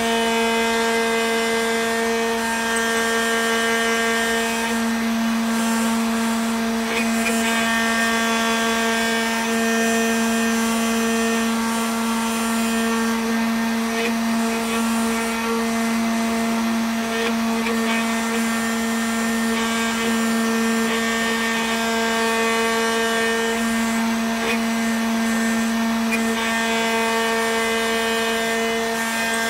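Homemade CNC router's spindle motor running at a steady pitch as its engraving bit carves a block of candle wax.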